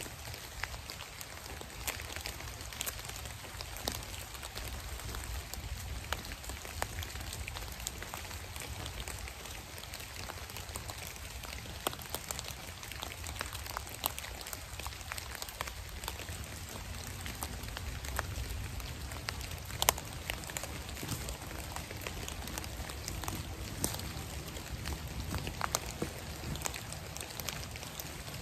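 Water drops pattering on the dead leaf litter of a wet, foggy woodland: a steady hiss with many scattered sharp drips, over a low rumble.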